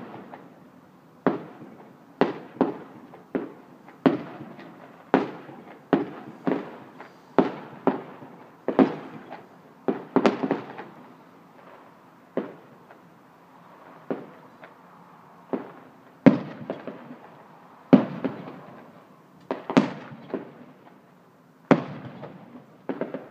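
Aerial fireworks bursting: an irregular string of sharp bangs, roughly one a second, each fading off in an echo, some with a crackling trail. The bangs thin out for a few seconds in the middle, then pick up again.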